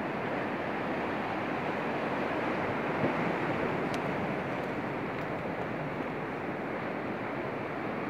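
Sea surf washing and breaking against the shore rocks, a steady rushing, with a few faint clicks about four to five seconds in.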